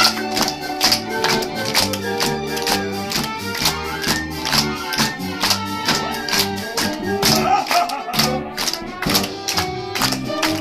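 Lively instrumental music with a fast, steady percussive beat, about three to four strokes a second.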